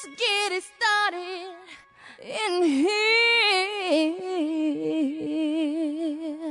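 A lone voice singing long wordless notes that slide and waver, with no instruments behind it and a short break about two seconds in.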